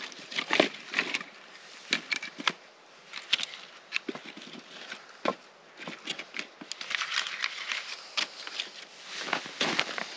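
Split firewood pieces being set down and stacked in a fire pit: scattered wooden knocks and clunks. Boots crunch in snow near the end.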